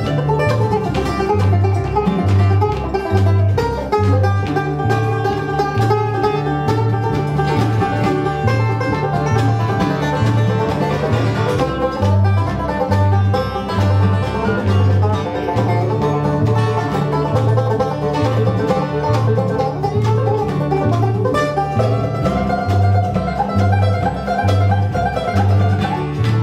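Live acoustic bluegrass band of banjo, mandolin, guitar and bass playing an instrumental break, with banjo picking prominent over a steady two-note bass beat.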